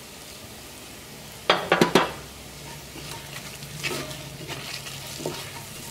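A wooden spatula stirring and scraping onions and spices frying in oil in an enamelled cast-iron pot, with a light sizzle. A few sharp knocks against the pot come about one and a half seconds in, followed by lighter scrapes.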